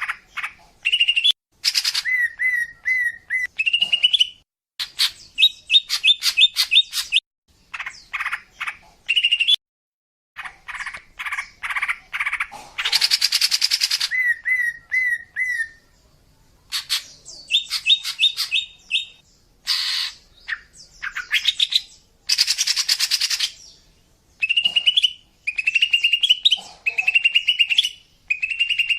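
Female green leafbird (cucak ijo) singing: a varied, continuous run of chirps, short repeated whistled notes and fast trills, broken by a few harsh rasping calls. This is the female's song used as a lure call to draw in males.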